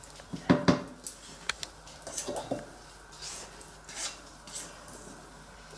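A spatula scraping and knocking against a stainless steel mixing bowl as chocolate génoise batter is folded from the bottom up. Two sharp knocks come about half a second in, then softer scrapes every second or so.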